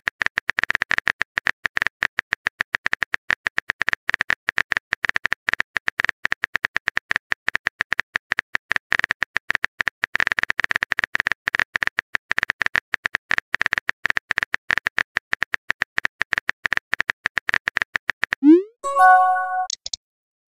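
Rapid, uneven stream of short electronic blips, all at one pitch. Near the end it stops, and a quick rising glide and a short run of stepped electronic notes follow.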